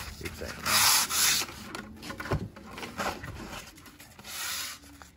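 Sandpaper rubbed by hand over the wooden staves of a barrel taiko shell, in uneven back-and-forth strokes with the loudest about a second in. This is light sanding to rub out the flat faces left between the staves.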